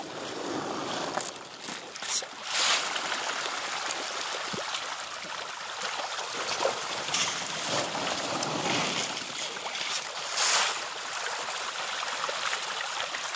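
Water splashing and churning as a dense school of fish thrashes at the surface, with a few louder splashes a couple of seconds in and again later on.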